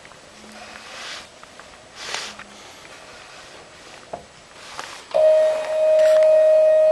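Faint sliding and a few light clicks, then about five seconds in a loud, steady, high-pitched whine starts abruptly and holds. This is the stepper motor of a home-built lathe running at a constant step rate.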